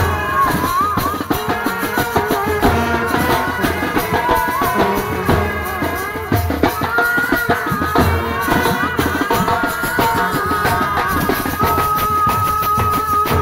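Indian street brass band playing a wavering melody over a beating marching drum and a shaken metal hand rattle. The melody settles into one long held note near the end.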